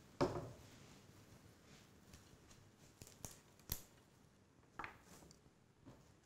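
Faint handling sounds as flower stems are worked at a table: a sharp rustling knock just after the start, the loudest sound, then a few isolated sharp clicks and a short rustle.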